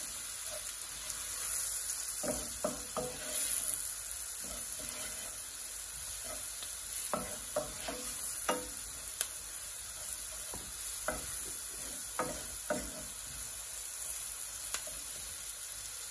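Onions and curry powder sizzling in hot oil in a nonstick pot, with a wooden spoon scraping and knocking against the pot in short, irregular strokes as it stirs. The curry powder is being fried until it turns grainy.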